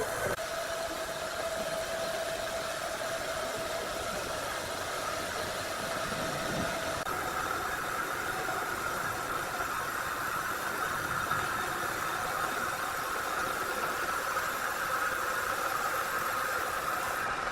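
Sawmill machinery running steadily with a whining tone over a wash of mechanical noise; the whine jumps higher about seven seconds in.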